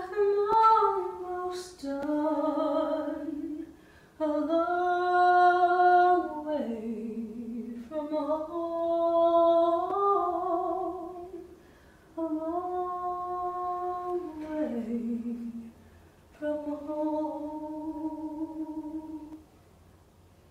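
A woman singing unaccompanied, a slow wordless melody in long held notes that glide from pitch to pitch, in about six phrases with short breaths between them.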